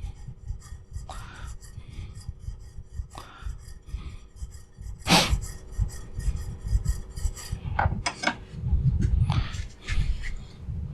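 Steel chisel rubbed back and forth flat on an oiled carborundum sharpening stone, quick repeated scraping strokes as its back is flattened. One louder knock comes about halfway through.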